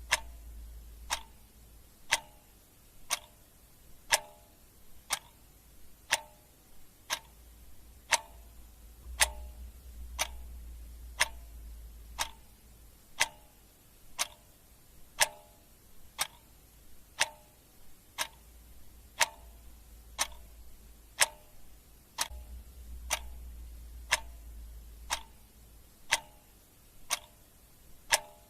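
Clock ticking at a steady pace of about one tick a second, with a faint low hum that swells and fades in places.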